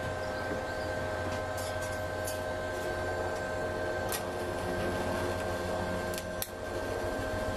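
TIG welding on a metal guard plate: a steady electrical buzz from the arc and welding machine over a low hum, with a brief drop about six seconds in.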